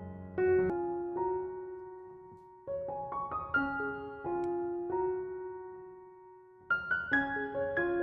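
Background music: a soft piano melody of single struck notes in short phrases, each note ringing and fading before the next phrase.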